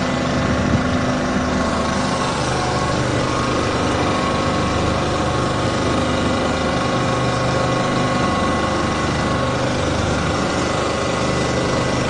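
Boat engine idling, a steady even hum that holds without change.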